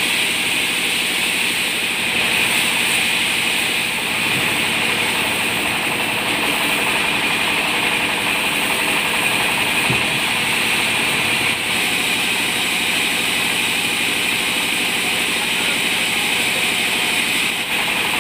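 Sawmill band saw running steadily while a balsa log is fed through it and sliced into planks, giving an even, unbroken machine noise with a hissing edge.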